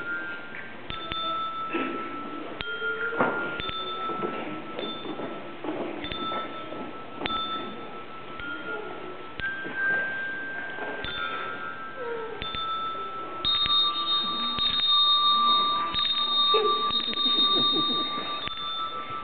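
A children's handbell choir ringing a slow tune, one bell at a time: each note starts sharply and rings on, at an uneven pace. In the last third the bells get louder and several ring together.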